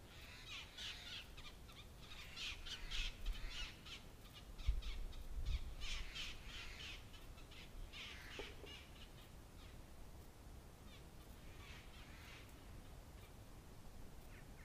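Birds calling in short runs of repeated calls, busiest in the first eight seconds, then only a few scattered calls.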